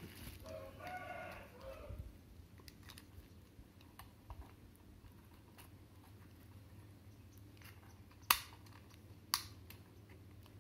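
A rooster crows once in the background, a call of about a second and a half starting about half a second in. Later two sharp clicks about a second apart, the loudest sounds.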